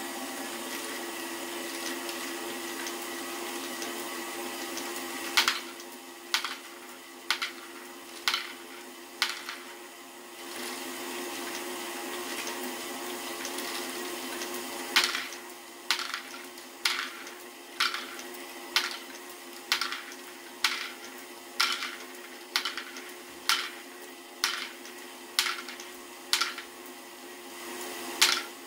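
LEGO electric motor and gear train of a Great Ball Contraption module running with a steady hum. From about five seconds in, sharp plastic clacks come about once a second as the stepping arms pass the balls along. The clacks stop for about five seconds in the middle, while the hum grows louder, then resume at the same pace.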